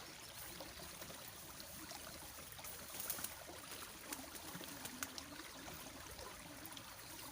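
Faint trickle of a small stream's flowing water, with a few light clicks about three and five seconds in.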